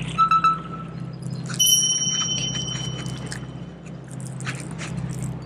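Baitcasting reel being cast: about one and a half seconds in, the spool spins up with a high, steady whine that fades over a second or so as the line pays out. Just before it, a short high chirp repeats four times quickly, and light clicks and ticks follow the cast.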